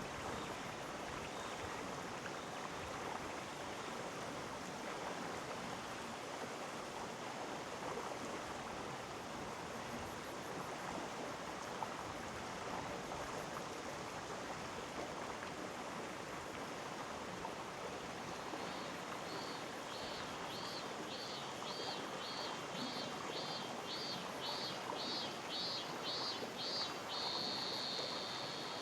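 Gorge stream flowing: a steady, even rush of water. About two-thirds of the way in, a high pulsed call starts, roughly two pulses a second, and runs together into one held note near the end.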